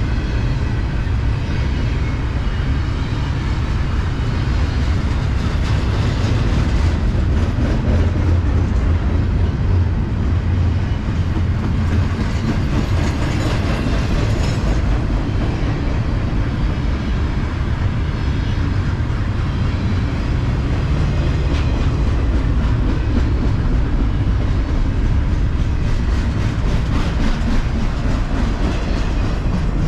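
Mixed freight train's cars rolling past at close range: a steady heavy rumble with wheels clicking over the rail joints.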